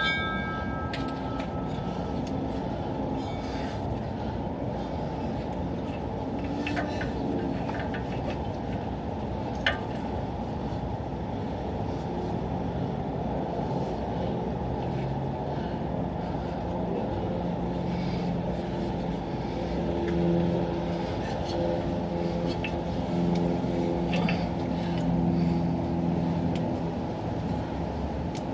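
Steady low rumble throughout, with a few faint clicks and taps of an oxygen sensor being fitted into the exhaust pipe by hand.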